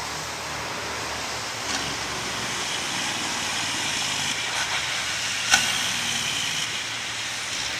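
Street traffic: a steady hiss of tyres and engine that swells a little and eases off again, with one sharp click about five and a half seconds in.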